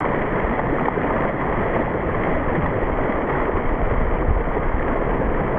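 Steady rushing of wind and water aboard a sailboat under way, with a heavy low rumble of wind buffeting the microphone.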